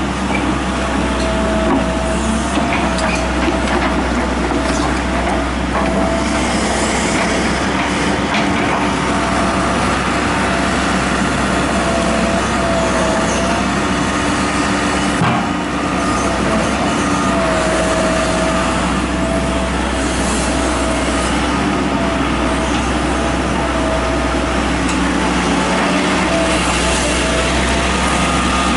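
John Deere tracked excavator's diesel engine running steadily as it digs, with a high whine that wavers slightly in pitch. There is one sharp knock about halfway through.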